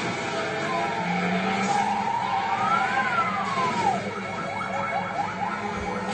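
A siren wailing over a running vehicle. Its pitch climbs to a high peak about three seconds in and drops away, then it switches to a fast yelp of short, quick sweeps.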